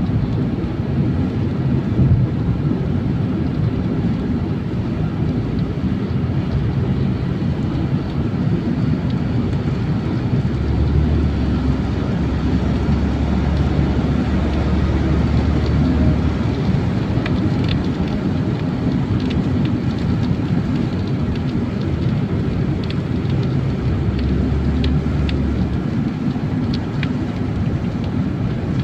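Steady low road and engine rumble heard inside a moving car's cabin. Scattered light ticks come in over the second half.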